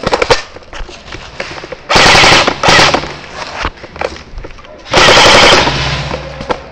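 Airsoft guns firing: a quick string of shots at the start, then two loud bursts of rapid fire about two and five seconds in.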